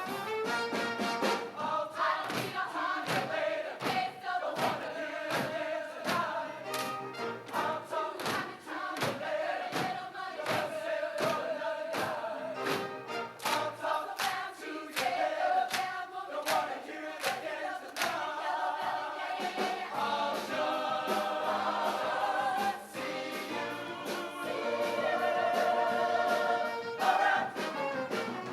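High school show choir singing in parts over instrumental accompaniment with a steady, driving beat.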